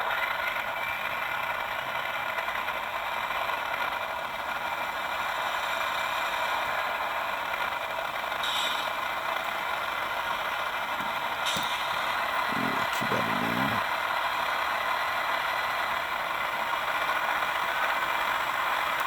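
HO scale GE Tier 4 GEVO model locomotive running on test rollers: its sound decoder plays diesel engine sound through a small onboard speaker, thin and without bass, along with the rattle of its wheels spinning the rollers. Steady throughout.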